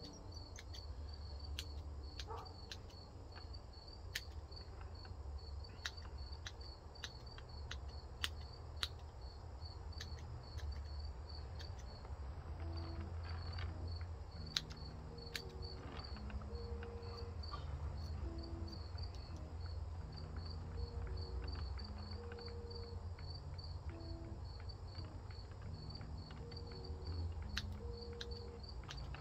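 Small bonsai clippers snipping juniper twigs in sharp, irregularly spaced clicks, over a cricket chirping steadily in an even rhythm.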